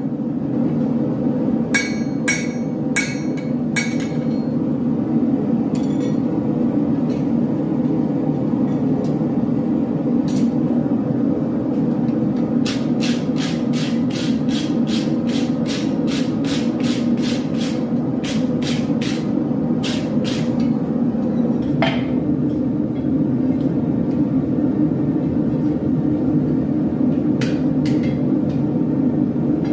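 Hammer blows on hot steel on an anvil, forging a short-sword blade: a few ringing strikes near the start, then a run of about twenty evenly spaced strikes, roughly two and a half a second, in the middle. A steady low roar runs underneath.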